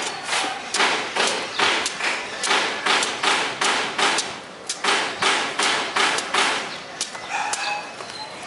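Machete or bolo chopping repeatedly into the husk of a young green coconut, trimming it, at about two sharp strikes a second. The strokes grow fainter near the end.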